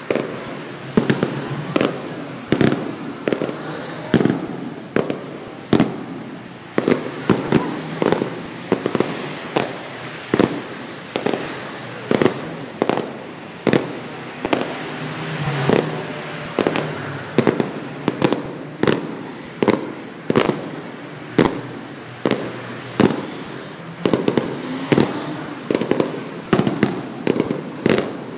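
Fireworks display: shells bursting in a steady run of sharp bangs, about one to two a second, each followed by a short echo.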